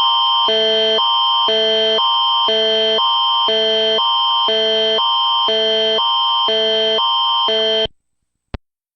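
Canadian emergency alert attention signal: a loud two-tone alarm alternating every half second for about eight seconds over a steady high tone, then cut off. A single short click follows about half a second later.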